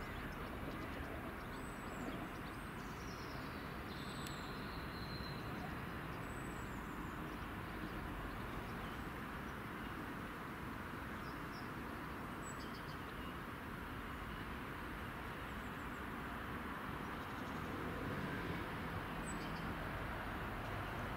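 Steady outdoor rumble with a few bird chirps in the first half. Near the end a low engine note comes in and grows slightly louder as a GWR Class 166 Turbo diesel multiple unit approaches.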